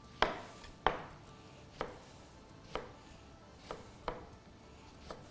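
Kitchen knife cutting a lemon on a cutting board: about seven sharp knocks of the blade on the board, roughly one a second, the first two loudest.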